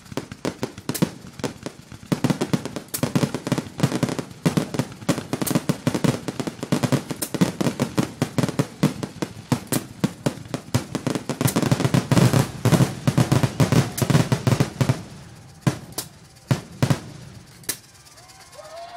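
Fireworks finale: a rapid barrage of aerial shell bursts, sharp bangs and booms coming several a second over a low rumble, thinning to a few single bangs near the end and then dying away.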